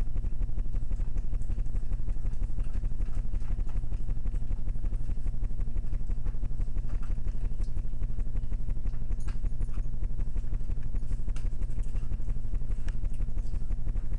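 A steady low buzzing hum, pulsing rapidly and evenly, with a few faint clicks in the second half.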